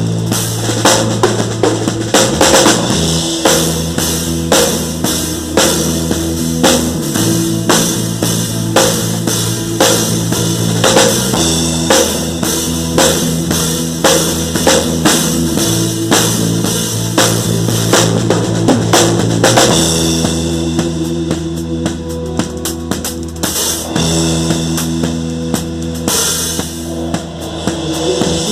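Band music with a steady drum-kit beat of bass drum, snare and cymbals over held low chords that change every few seconds, typical of an instrumental passage of gospel worship music.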